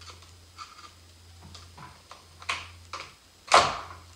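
Needle-nose pliers clicking and scraping against the throttle cable fitting on a RedMax edger engine's carburetor, with the cable refusing to come free. A few short, irregular clicks, the loudest near the end.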